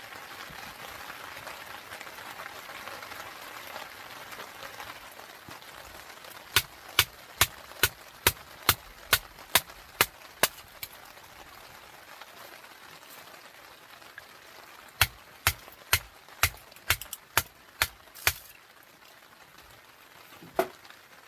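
Steady rain hiss with two runs of sharp, evenly spaced clicks, about two a second, one in the middle and one later, and a single click near the end.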